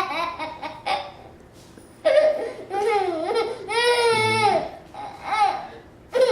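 A baby's voice: a few short, whiny crying sounds in separate bursts after a quiet gap, the longest one falling in pitch, with laughter trailing off at the start.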